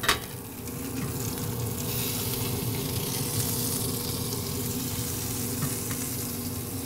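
An 80/20 ground-beef patty sizzling on hot grill grates directly over a pellet fire, with bacon frying alongside. A short knock comes right at the start, and the sizzle grows louder from about a second in and holds steady.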